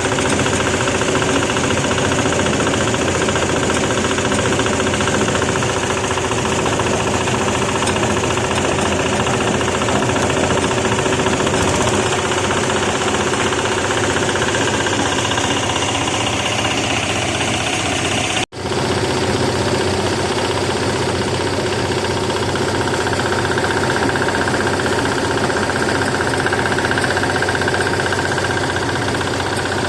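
Market-waste sorting machine that separates plastic from vegetable waste, running steadily with a loud mechanical drone. The sound breaks off for a split second a little past the middle.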